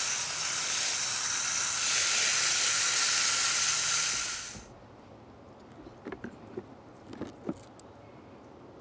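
Water running in a steady hiss, shut off abruptly about four and a half seconds in, followed by a few light clicks and knocks.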